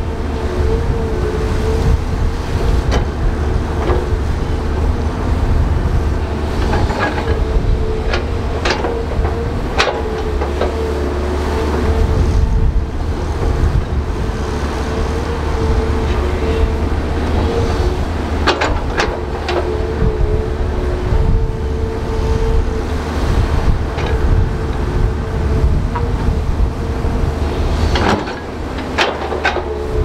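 Large crawler bulldozer at work: the diesel engine runs with a low rumble and a steady whine, and sharp metal clanks come at scattered moments, in small clusters.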